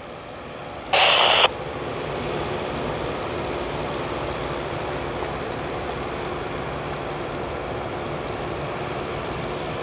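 EMD GP38AC and GP38-2 diesel locomotives approaching at a distance, their steady engine rumble growing louder after about two seconds. About a second in, a short, loud sound lasting about half a second, louder than anything else.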